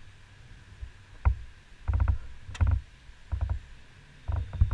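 Paddling a canoe: about five irregular knocks and splashes from the paddle working the water and touching the hull.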